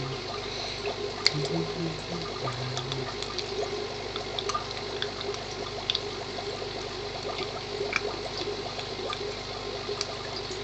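Aquarium filter running: a steady trickle and splash of water, with scattered faint clicks.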